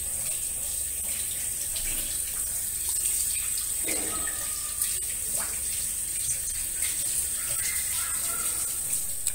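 Tap water running in a thin, steady stream into a stainless steel sink while fish pieces are rinsed under it by hand.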